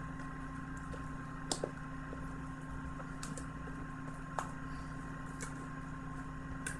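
A few faint clicks of a cardboard box and plastic Blu-ray cases being handled as the cases are worked out of a tight box, over a steady background hum.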